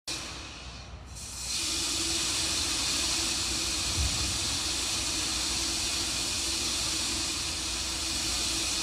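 Steady hiss of the Terran 1 rocket venting vapour on the launch pad in the last seconds of the countdown. It comes in about a second and a half in, with a faint steady hum under it and a brief low thump about four seconds in.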